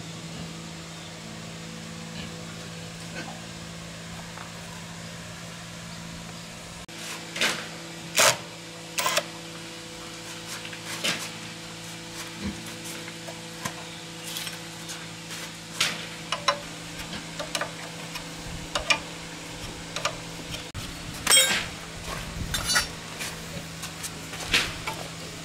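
Metal tools and parts clinking and knocking at irregular intervals during mechanical repair work, several strikes ringing briefly. The strikes start about a quarter of the way in, over a steady low hum.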